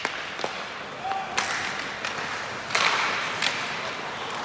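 Ice hockey play in a rink: a handful of sharp stick-and-puck knocks over steady rink noise.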